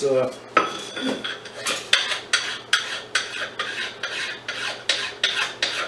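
Hand file rasping in quick back-and-forth strokes across a metal part, about four strokes a second.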